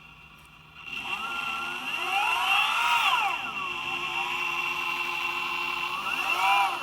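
Boosted electric skateboard motor whining as it spins up, its pitch rising to a peak about two seconds in and falling back, then rising and dropping again briefly near the end.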